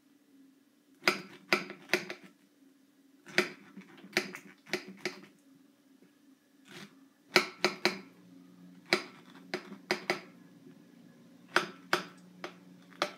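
Knife clicking against a ceramic plate while cutting out a pineapple's core: sharp clicks in quick clusters of three or four, a cluster every second or two.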